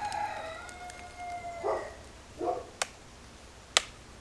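A dog whines in one long, slightly falling call, then gives two short yelps. Near the end come two sharp knocks of a cleaver striking the wooden chopping block.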